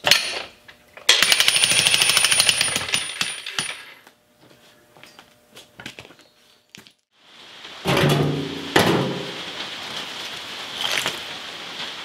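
Electric jackhammer's chisel pounding concrete in one burst of about three seconds, a fast even hammering with a thin high whine. Later come scattered thuds and clatter of broken concrete chunks.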